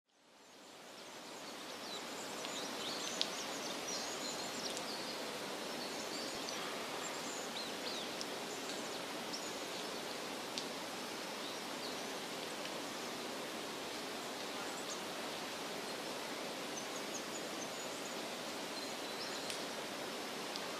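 Woodland ambience: a steady outdoor hiss that fades in over the first two seconds, with faint, scattered high chirps of small birds and a sharp click about three seconds in.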